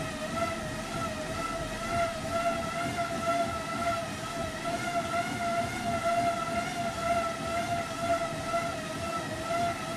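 Road bike spinning fast on a set of bicycle rollers: the tyres and roller drums give a steady high whine with a slight waver, over a low rumble.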